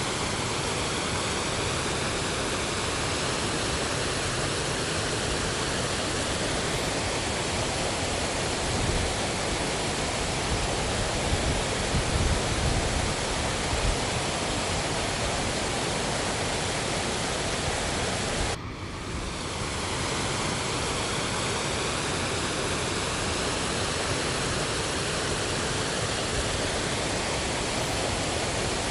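Creek water rushing over a low rock ledge and through rapids: a steady, even rush of falling water. It briefly drops and resumes about 18 seconds in.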